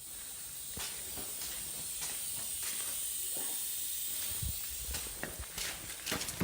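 Compressed air hissing steadily through a leak-down tester as cylinder 1 is pressurised at top dead centre for a control test. The hiss is high-pitched and builds over the first second, with a few faint knocks partway through.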